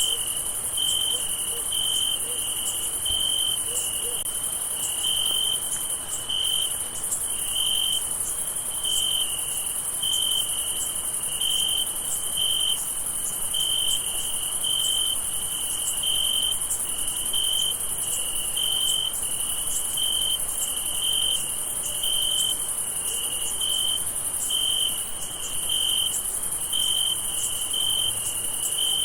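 Night chorus of crickets: a steady high-pitched shrill, with a lower chirp pulsing evenly about once every three-quarters of a second.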